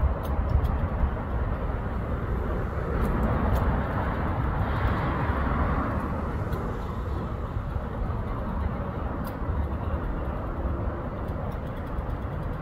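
Steady low outdoor background rumble, swelling briefly about five seconds in.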